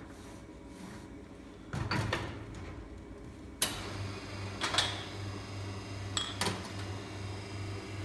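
Metal clanks and clicks of a portafilter being locked into a commercial espresso machine's group head and ceramic cups set on the metal drip tray grate. About four seconds in, a low pulsing hum starts as the machine begins pulling the shot.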